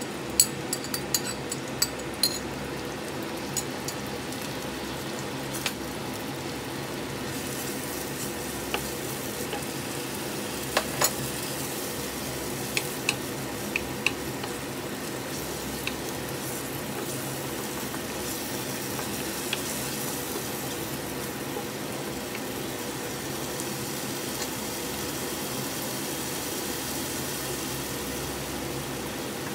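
Blended spice paste of garlic, shallot, chili and kencur frying in hot oil in a pan with a steady sizzle. A spoon clinks and scrapes against the plate and pan several times in the first couple of seconds, and a few more clicks come about halfway through as the paste is stirred.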